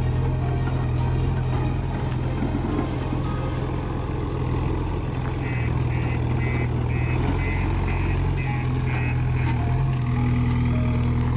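JCB 530-110 telehandler's diesel engine running steadily while the boom lifts and places a straw bale. Midway there is a run of about eight short high beeps, roughly two a second.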